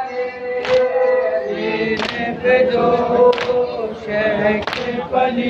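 A group of men chanting a Muharram mourning lament (noha) in unison, with the sharp slap of hands striking chests together (matam) in a steady beat about every 1.3 seconds, four strikes in all.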